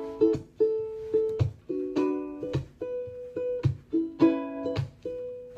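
Ukulele playing the instrumental intro of a pop song cover, rhythmic strummed chords that ring on, with a low thump on the beat about once a second.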